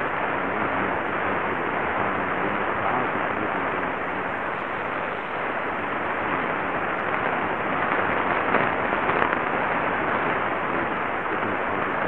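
Medium-wave AM static from the Qodosen SR-286's speaker, tuned to 594 kHz: a steady hiss with crackles, with no clear station audio above the noise. The crackles grow a little louder about eight to nine seconds in.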